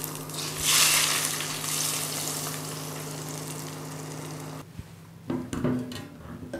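Hot olive oil poured over a pot of stuffed grape leaves, sizzling: loudest about a second in, then fading over the next few seconds, over a steady low hum that stops at the same moment. A few light knocks follow near the end as a pot lid is handled.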